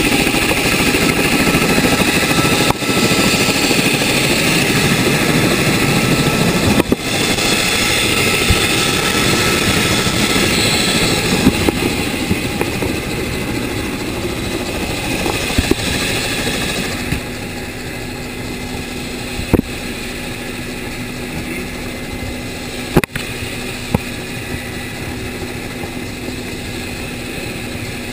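Ka-27 Helix helicopter running on a ship's deck: steady, loud noise of its coaxial rotors and twin turboshaft engines. The noise drops somewhat about 17 seconds in, leaving a steadier low hum, with a couple of sharp knocks near the end.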